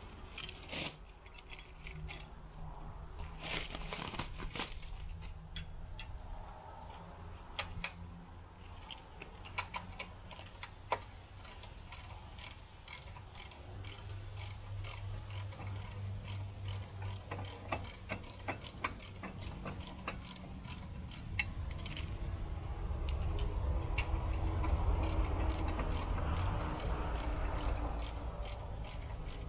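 Socket ratchet clicking in fast runs as a nut is worked off a length of threaded rod, with metal tool clinks. A low rumble swells in underneath during the last third.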